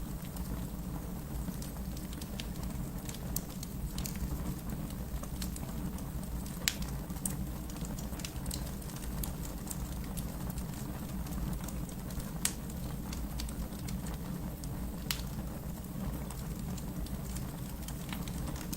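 Wood fire burning in a fireplace: a steady low rumble of flames with scattered sharp crackles, a few of them louder snaps.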